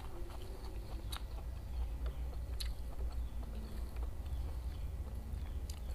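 Close-miked mouth sounds of a person chewing a mouthful of food, with three short sharp clicks spread through.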